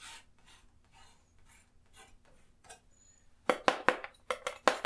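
Metal palette knife making soft scraping strokes of oil paint on canvas, then a quick run of about eight sharp clicks and taps against the palette as the knife is worked in the paint, starting about three and a half seconds in.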